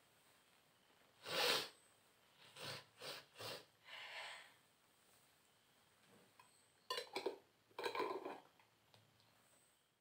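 A woman's short, noisy sniffs and breaths through the nose, one stronger burst about a second and a half in and a cluster of quicker ones near the end. She is trying to provoke a sneeze, and her nose is burning.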